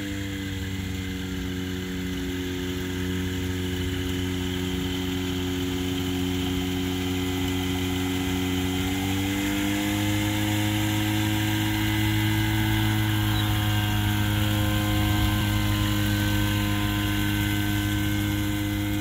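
Rotax 582 two-stroke engine of a Bushbaby light aircraft running at low power while the plane taxis. The engine note rises a little about nine seconds in and then holds steady.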